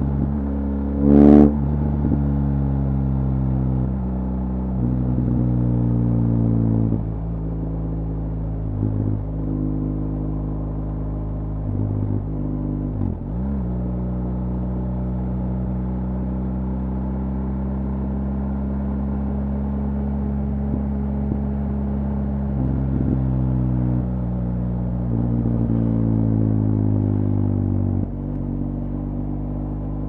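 BMW R1200GS Adventure's boxer-twin engine running through an Akrapovic HP exhaust at steady highway cruise. The note swells a few times as the throttle opens and then eases back, and about midway the pitch dips briefly and climbs again. About a second in there is a brief, loud, higher-pitched blast.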